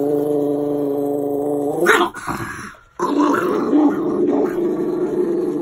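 A small dog growling long and steadily in anger at being bathed. The growl breaks off with a sharper sound about two seconds in, then starts again about a second later.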